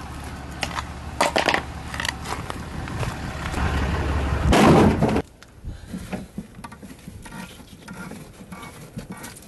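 Plastic wheel chocks being handled and tossed into a pickup truck bed, with scattered knocks and one loud clatter about four and a half seconds in as they land, over a low steady rumble that stops at that point. Small clicks and taps follow.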